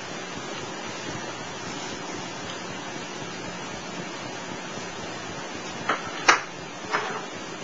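Steady hiss of an old recording, with three short scratchy ticks close together near the end.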